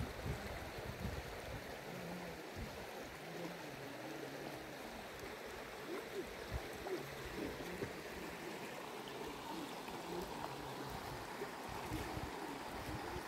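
Shallow stony stream running over small riffles, a steady rush of water, with intermittent low rumbles.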